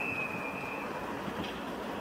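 Train sounds from trackside: a high, steady squeal dies away within the first second, leaving a low, even rumble.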